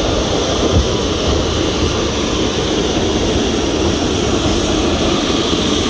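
Steady, loud rushing rumble of a narrow-gauge steam train running, heard from a passenger car.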